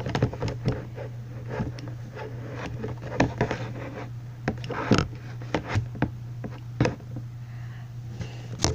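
Handling noise from a handheld recording device held close up: irregular scratches, taps and rubs on the microphone over a steady low hum, with a louder rustle near the end.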